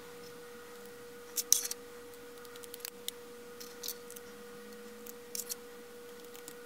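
Laser-cut Delrin plastic parts clicking and tapping against each other as they are handled and fitted together by hand: a few short clicks, several close together about a second and a half in, over a faint steady hum.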